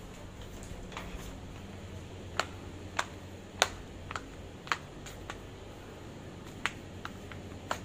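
A series of about nine sharp clicks, irregularly spaced roughly half a second to a second apart, over a steady low hum.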